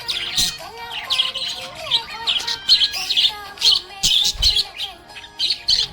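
Budgerigars chirping and chattering, with a rapid, continuous stream of short, high chirps and some whistled gliding notes.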